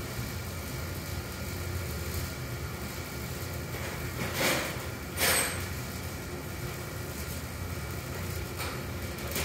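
Steady low machinery hum of a workshop, with two short, loud noises close together about halfway through.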